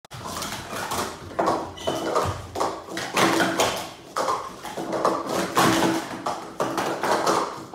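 Plastic sport-stacking cups being stacked and unstacked at speed by two players working together in a doubles cycle run: a fast, uneven clatter of cups clicking and tapping against each other and the table.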